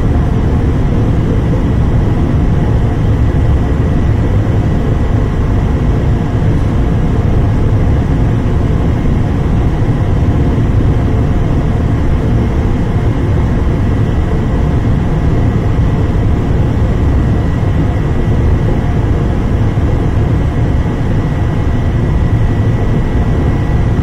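Steady roar of an industrial gas-fired furnace running at high fire: North American Tempest burners and their combustion-air supply, an even low-heavy rush with a faint steady high whine on top.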